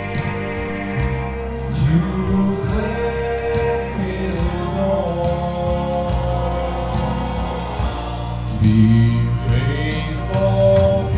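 A man sings a gospel song into a microphone with instrumental accompaniment, holding long notes that slide between pitches.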